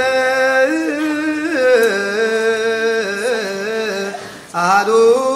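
Voices chanting a slow hymn in long held notes with ornamented turns, a higher and a lower voice together. There is a short break about four and a half seconds in, and then the chant resumes.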